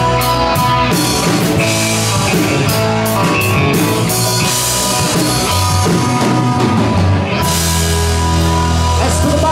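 Live rock band of electric guitars, bass guitar and drum kit playing loud and dense. About seven seconds in, the cymbals and drums stop and the band holds one long ringing chord.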